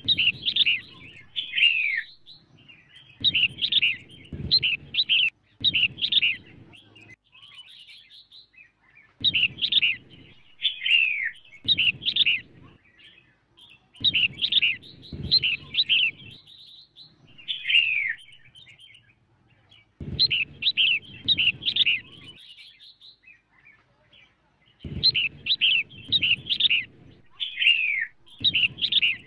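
Female red-whiskered bulbul calling, the kind of call used to stir up wild-caught males. It gives bursts of quick, chattering chirps in phrases of one to three seconds, repeated with short pauses, and a low rumble sits under each phrase.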